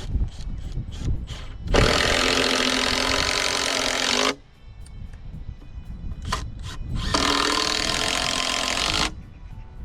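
Power drill driving screws into wood, in two runs of about two seconds each, the motor slowing as it cuts off after the first; light knocks of wood being handled before and between the runs.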